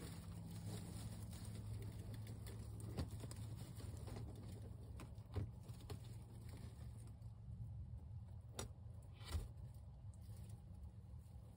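Royal Palm turkey hen shifting on her pine-straw nest and tucking eggs under her with her beak: faint rustling with a few soft clicks, over a steady low hum.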